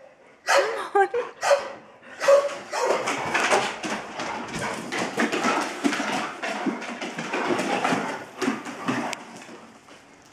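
Bernese mountain dog barking: a few short barks in the first two seconds, then about six seconds of rapid, overlapping barks and yelps that die down near the end.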